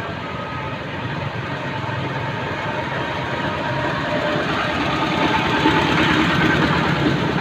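Engine running steadily, getting louder over the second half, with faint voices underneath.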